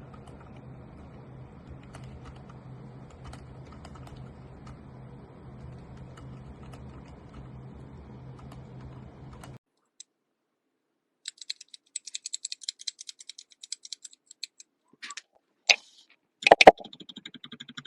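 Typing on a mechanical keyboard with Outemu silent switches, heard as muted keystrokes in separate takes. First it is faint, under a low steady hum; then after a short silence comes a fast run of light clicks, and a few louder sharp knocks come near the end.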